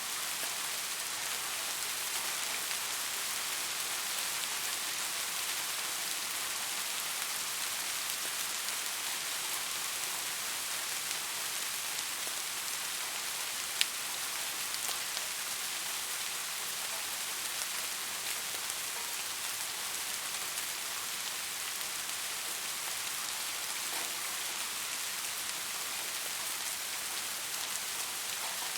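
Steady rain falling on a surface, an even hiss with fine scattered drop ticks and one sharper drop about halfway through.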